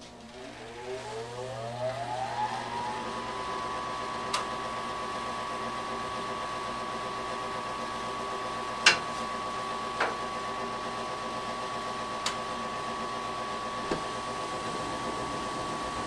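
Gas furnace draft inducer motor starting up, its whine rising in pitch over about three seconds and then running steady, as the furnace begins its sequence of operations. Five sharp clicks sound over the running motor, the loudest about nine seconds in.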